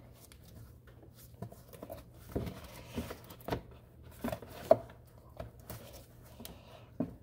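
Scattered light clicks, knocks and rubbing of plastic and rubber as gloved hands fit the rubber intake duct onto the top of a car's plastic air filter box, with a sharper click about four and a half seconds in.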